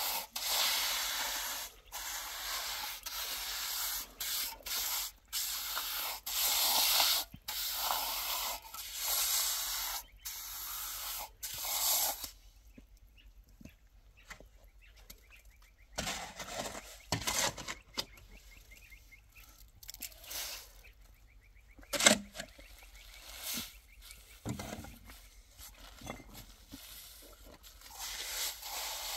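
Steel trowel scraping and smoothing wet cement, with repeated rough strokes for about twelve seconds. After that it goes quieter, with a few scattered knocks and scrapes and one sharp knock about two-thirds of the way through.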